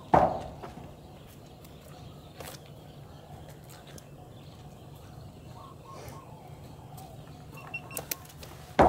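A single footstep on dry ground, then quiet outdoor background with a low steady rumble and a few faint bird calls.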